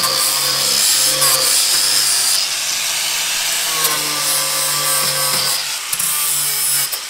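Angle grinder with a flap disc grinding rust and old paint off the steel of a car's rear wheel arch. The motor runs steadily with a high whine, its sound shifting as the disc is worked against the metal and easing off briefly near the end.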